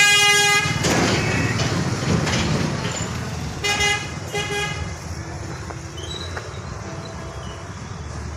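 A vehicle horn honks once at the start and twice more in short blasts about four seconds in, over a steady low rumble.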